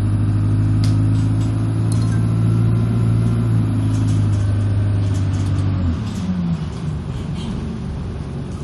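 Bus engine heard from inside the passenger cabin, running with a steady low drone; about six seconds in the drone drops away with a short fall in pitch and gives way to a rougher rumble.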